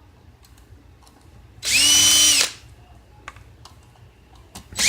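Electric drill-driver backing out small screws: two short runs of the motor, each spinning up, holding a steady whine for under a second and winding down, one about two seconds in and another starting near the end, with faint small clicks between.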